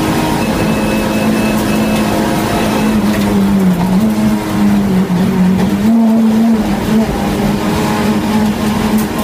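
Renault Clio Cup race car engine running hard under racing load, its note dipping a couple of times and climbing again about six seconds in.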